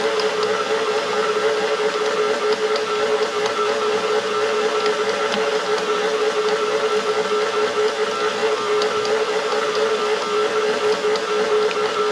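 Electric stand mixer running at a steady speed, kneading sourdough bread dough, its motor giving a steady whine.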